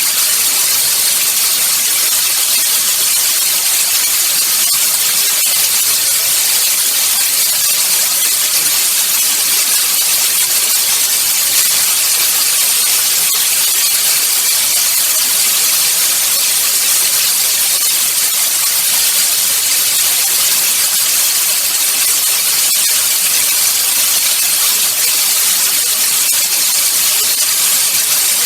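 Loud, steady hiss of static-like noise, brightest in the treble, unchanging and without any separate events.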